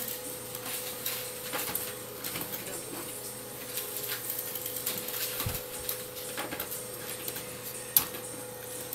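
Paper rustling and light plastic clicks as a cat paws and noses around in a printer's output tray, with a faint steady hum underneath. A sharper click comes about eight seconds in.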